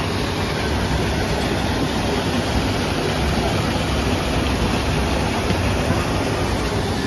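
Steady rushing of water falling and running through rockwork, with a low rumble underneath.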